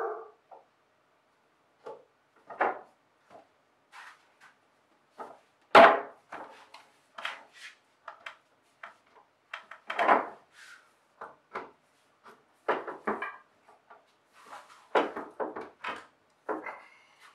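Irregular wooden knocks and clunks as gum wood table-frame parts are pushed together at their mortise-and-tenon joints and set down on a wooden workbench, the loudest about six and ten seconds in.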